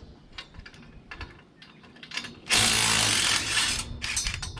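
Scattered metal clicks and clinks, then about two and a half seconds in a handheld power tool runs hard for just over a second before stopping.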